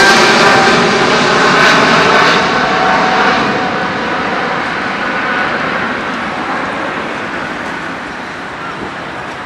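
Boeing 777-300 twin-jet engine noise fading as the airliner moves away, with a fan whine that drops slightly in pitch and dies out in the first few seconds, leaving a dwindling rumble.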